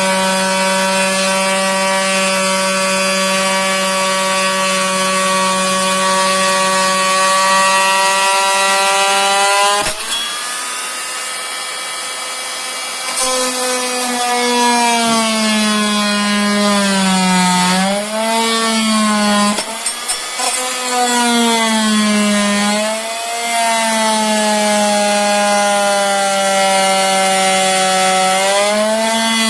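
Electric power tool sawing into laminate flooring boards to trim them back from the wall, its motor giving a loud, steady whine. About ten seconds in it dips briefly, and from there on the whine sags and wavers in pitch as the blade takes the load of the cut.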